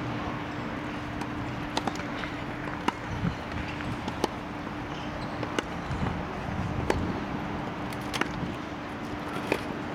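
Tennis rally: racquets striking the ball, a sharp pock about every 1.3 seconds, seven times, over a steady low hum and outdoor background noise.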